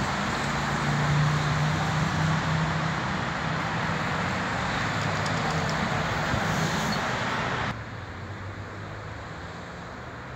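Road traffic: a steady rush of passing vehicles with a low engine hum. About three quarters of the way through it cuts off suddenly to a quieter, more distant traffic noise.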